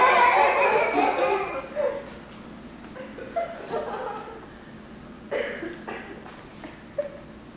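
Theatre audience laughing, the laughter dying away about two seconds in, then a few scattered laughs.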